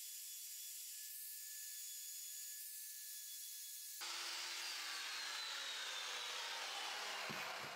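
Plunge router with a chamfer bit running with a high whine, then, about halfway through, winding down with a steadily falling whine as it spins down.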